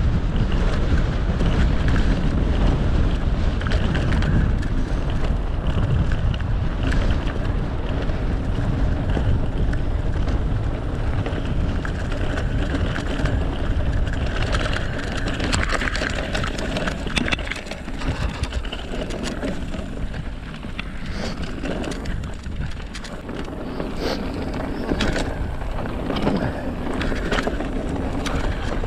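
Wind buffeting the microphone as a mountain bike descends a dirt trail at speed, over the hiss of tyres rolling on dirt and gravel. In the second half the bike clatters with frequent short knocks and rattles from bumps and stones.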